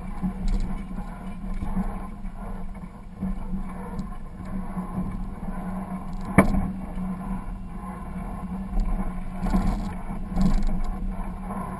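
A 4x4's engine running at crawling speed on a rocky trail, picked up from the hood, with rough rumbling from the rocks and a single sharp knock about six seconds in.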